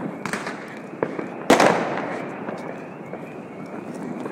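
New Year's Eve fireworks and firecrackers going off along the street: a few sharp cracks, the loudest about a second and a half in, over a steady crackle of further bangs.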